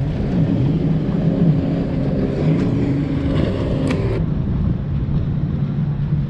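Wind buffeting the microphone as a steady low rumble, with a faint wavering hum underneath.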